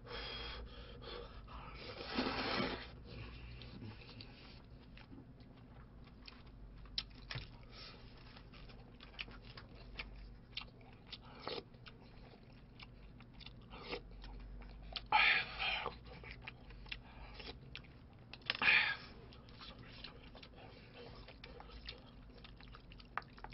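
A person chewing noodles and stew close to the microphone, with many small wet mouth and chopstick clicks, and three louder slurps about 2, 15 and 19 seconds in.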